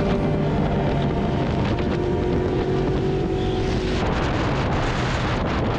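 Motorcycle engine running at a steady pitch while riding, with wind rushing on the microphone; about four seconds in the engine note drops away and the wind noise takes over.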